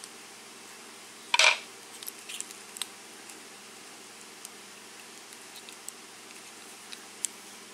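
Small metal lock parts handled while a KIK pin-tumbler cylinder is being taken apart: one short scrape about a second and a half in, then scattered light clicks and ticks.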